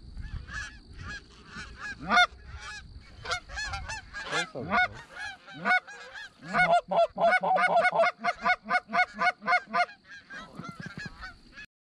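Canada geese honking, many calls overlapping, with a fast even run of clucking honks, about four a second, in the middle stretch.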